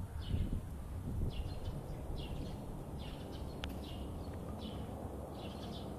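Small birds chirping, short high chirps repeating about once a second, over a steady low rumble.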